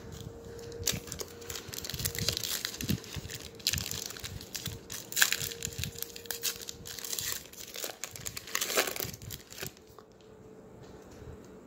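Foil wrapper of a hockey card pack being torn open and crinkled by hand, crackling irregularly for several seconds and dying down near the end as the cards come out.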